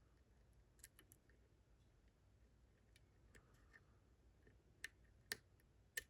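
Faint, scattered clicks of a lock pick working the pins of a Ruko Combi 2 lock (a six-pin lock with a five-pin sidebar), with a few sharper clicks near the end.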